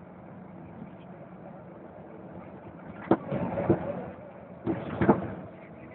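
Cab noise of a MAN TGA 410 truck's six-cylinder diesel running steadily on the road, heard from inside the cab. Two loud bursts of knocking and rattling about three and five seconds in.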